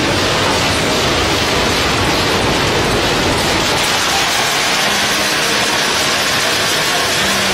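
Loud, steady noise of almond roasting machinery running, an even whooshing hum with no clear beat.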